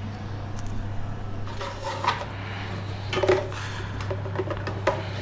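Old plastic toilet-cistern syphon being worked loose and lifted out, with a few scattered clatters and knocks of plastic against the cistern.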